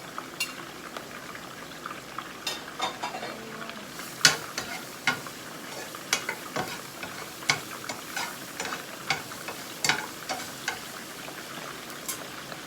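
Garlic sizzling in hot oil in a frying pan, stirred with a utensil that clicks and scrapes against the pan at irregular moments.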